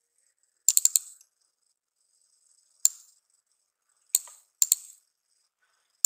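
Computer keyboard and mouse clicks: a quick run of about four keystrokes around a second in, then three single clicks spaced over the following few seconds.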